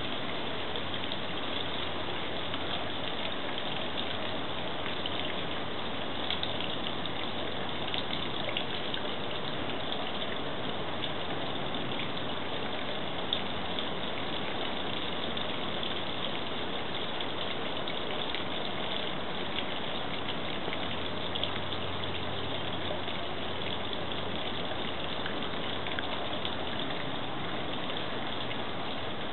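Backyard fountain's water splashing steadily, an even, unbroken rush of water.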